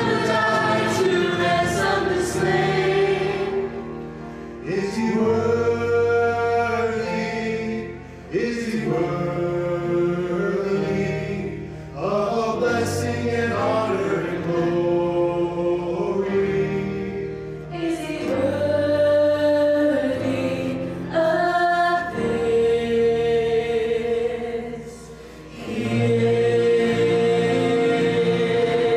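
Mixed choir of men's and women's voices singing a hymn in harmony, accompanied by piano and acoustic guitar, in long held phrases with short breaks between them.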